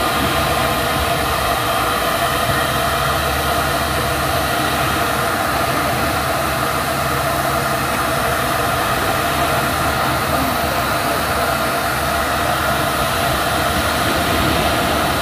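Compressed air rushing steadily through a hose into a rubber ship-launching airbag, a continuous hiss with a low engine hum underneath.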